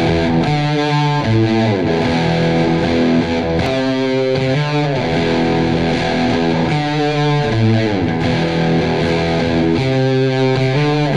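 Background music: a distorted electric guitar plays sustained chords in a repeating pattern.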